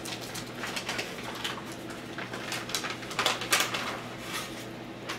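Paper and trading cards rustling as they are handled, with short clicks and a louder burst of rustling about three seconds in.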